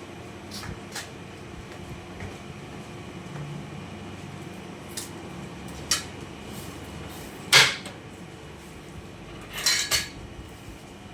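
Kitchen utensils and dishes clinking and knocking during food preparation: a handful of separate sharp knocks, the loudest about two-thirds of the way through, then a short rattling clatter near the end.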